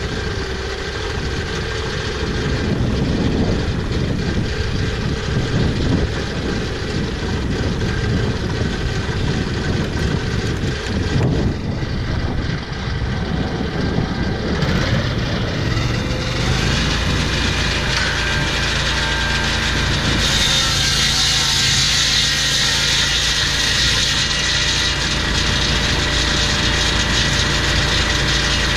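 Portable swing-blade sawmill's petrol engine running, irregular at first and settling to a steady pitch about sixteen seconds in. About twenty seconds in, the blade cuts into a log and a loud, hissing sawing noise joins the engine.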